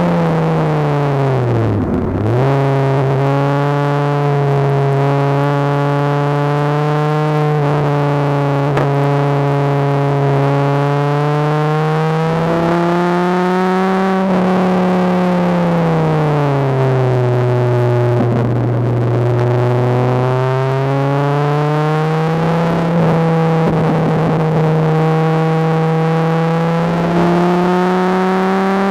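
Dodge Viper RT/10's 8.0-litre V10 engine under way on track, heard from inside the cabin. Its pitch dips sharply and recovers about two seconds in, holds steady for long stretches, rises then falls around the middle, and climbs again near the end.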